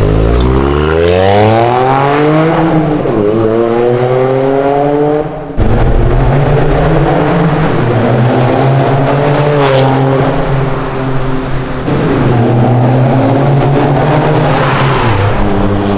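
Toyota GR Yaris's 1.6-litre turbocharged three-cylinder engine heard through an Akrapovic titanium Slip-On Race Line exhaust, revving. The pitch climbs over the first five seconds with a brief dip near three seconds and breaks off abruptly. It then runs at fairly steady revs with small rises and falls.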